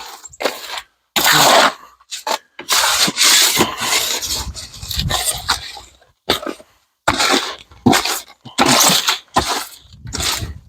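Concrete mix being mixed by hand: a string of irregular scraping and rubbing strokes with short pauses between them.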